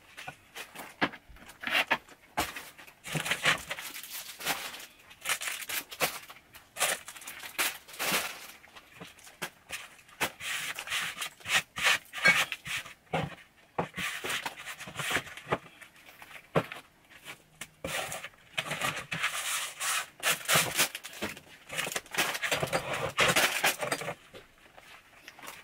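Glass jars and tin cans knocking and clinking as they are handled and set down on a pantry shelf, in irregular clusters of short knocks, with rubbing and rustling of a rubber-gloved hand against the shelf and packaging in between.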